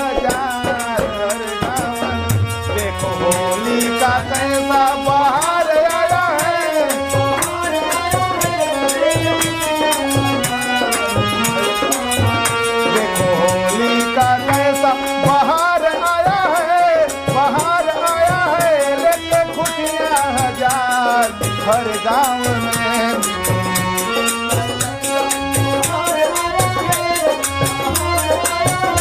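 A Holi folk song played on harmonium, with dholak drumming in a steady rhythm and jingling hand cymbals.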